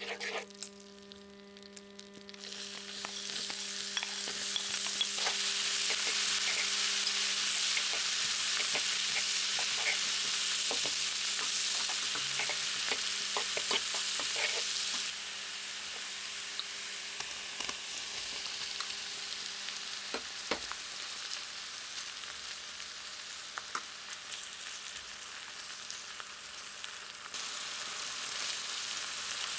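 Food sizzling in oil in a hot pan while being stirred, with scattered clicks of the utensil against the pan. The sizzle starts about two seconds in, eases off about halfway through, and picks up again near the end.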